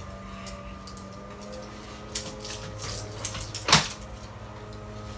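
Chicco bassinet frame tubes being handled and fitted together, giving a few light knocks and clicks, the loudest about three and a half seconds in, over a steady low hum.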